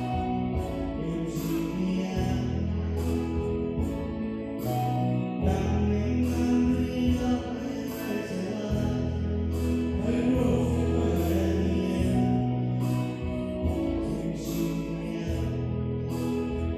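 Gospel song with singing over electronic keyboard accompaniment: a bass line that changes every second or two and a steady beat.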